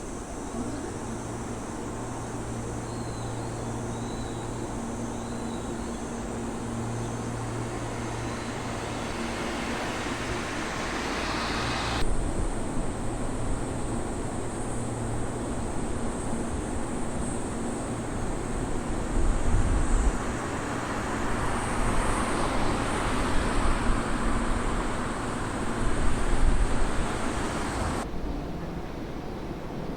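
Electric commuter train running along the track: a steady rumble that builds, then a louder stretch of wheel-on-rail noise with several heavy low thuds, easing off near the end.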